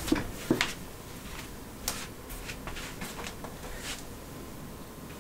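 Scattered clicks and light knocks from an Ethernet cable being handled and plugged into a network card's port. Two sharper clicks come in the first second, then lighter ticks follow a few times.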